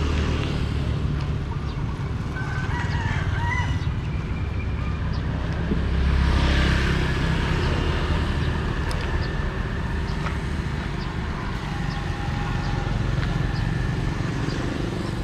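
Motorbike engines running along the road, with one passing close and loud about six seconds in. A rooster crows briefly about three seconds in.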